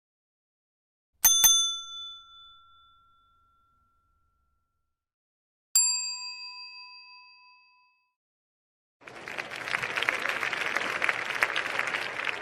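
A bright bell struck twice in quick succession about a second in, ringing out over about two seconds, then a single bell ding near six seconds that also rings away. From about nine seconds, a crowd applauding.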